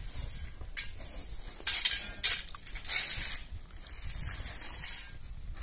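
Cookware and utensils being handled: several short scraping and knocking noises, the loudest about two seconds in.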